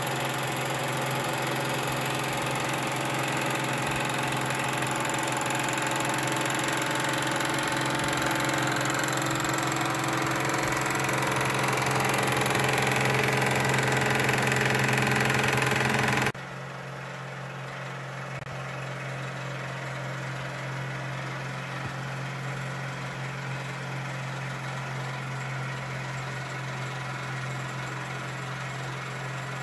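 Wilesco D21 toy steam engine running steadily at about 1300 rpm, a mechanical hum under a hiss. About halfway through, the sound drops abruptly to a quieter steady running.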